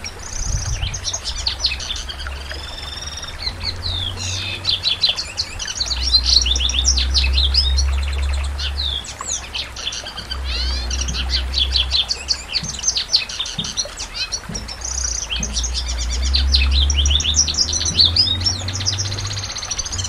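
Domestic canary singing a long, fast song of rapid trills and rattling phrases, with short pauses about halfway through and again about three quarters of the way through.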